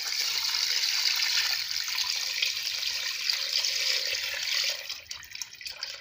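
Palm fruit water poured in a steady stream from a bowl into a pot of broth and meat, splashing as it lands. About five seconds in the stream thins and breaks into uneven trickles and splashes as the bowl runs empty.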